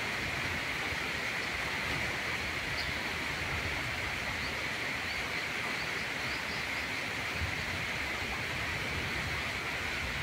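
Steady rain falling, an even hiss with a low rumble underneath, and a few faint high chirps a few seconds in.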